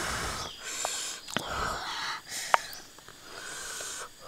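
Cooked river mussel shells being prised apart and the meat picked out by hand: rustling and scraping, with a few sharp shell clicks.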